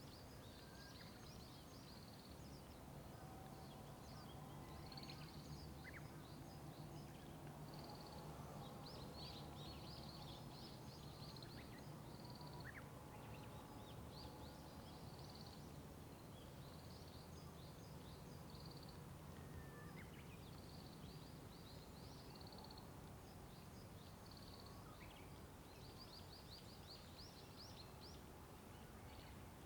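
Faint songbirds singing: many short, high chirps repeated throughout, with a few thin whistles, over a steady low rumble of distant road traffic.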